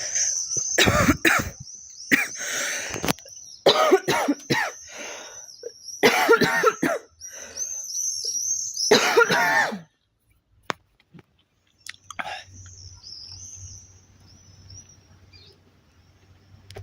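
A girl coughing in five harsh fits over the first ten seconds, each a short run of coughs; the coughing stops about ten seconds in.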